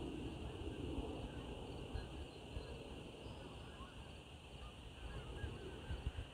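Outdoor evening ambience: many short, faint bird chirps over a steady high drone, with a low rumble of wind on the microphone.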